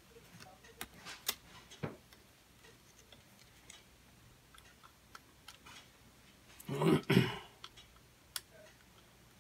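Faint, scattered light clicks and taps of small screwdrivers and parts on an opened MacBook Pro's logic board and aluminium case. About seven seconds in comes a louder double burst of noise.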